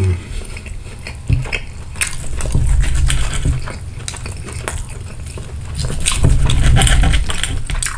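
Metal knife and fork scraping and clicking against a ceramic plate as a breaded chicken cutlet is sawn through, in many short strokes, with two heavier stretches of sawing.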